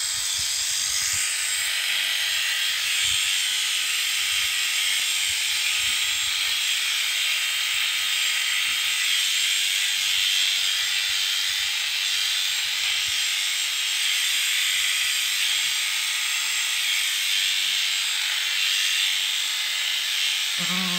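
Electric sheep-shearing handpiece running with a steady high buzz as it cuts the fleece off a ram lamb.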